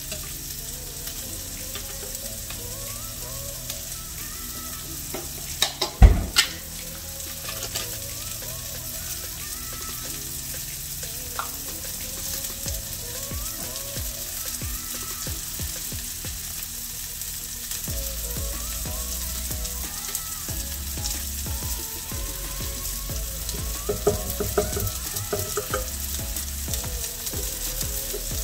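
Food sizzling steadily as it cooks, with one sharp knock about six seconds in and some clattering near the end.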